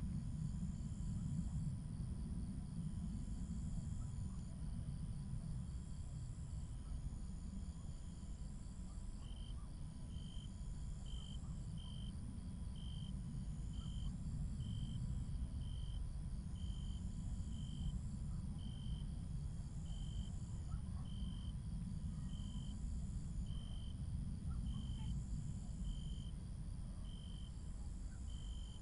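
Quiet ambient background: a low steady rumble with faint high chirps repeating evenly, about one pair every two seconds. A second, lower chirp comes in about nine seconds in and repeats about once a second.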